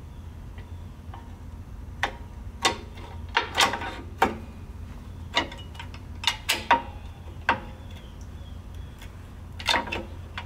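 Steel brake shoes and their springs clinking and clicking against the backing plate as a tractor drum-brake shoe assembly is spread apart and worked into place by hand. The clicks are irregular, some with a short metallic ring, over a steady low hum.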